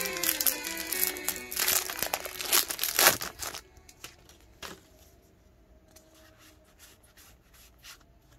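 Plastic wrapper of a Pokémon trading card pack crinkling and tearing as it is opened by hand: a dense run of crackles for about three and a half seconds, then only a few faint clicks and rustles. Background music with a melody fades out in the first second or so.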